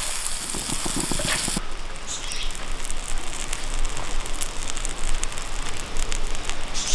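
Melted butter sizzling and crackling in a hot non-stick frying pan as slices of white bread are laid in to toast.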